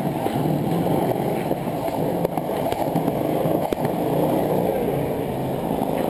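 Skateboard wheels rolling over smooth concrete, a steady low rumble, with a few sharp clacks of the board now and then.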